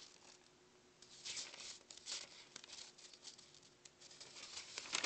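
Faint rustling of a spiral notebook's paper page as it is handled and held up, in a few short bursts with small clicks between.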